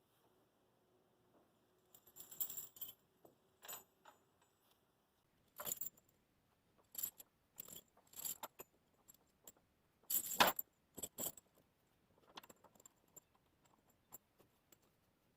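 Heavy steel tire chains clinking and jangling in irregular bursts as they are handled and pulled over a backhoe's rear tire, the loudest rattle a little past the middle.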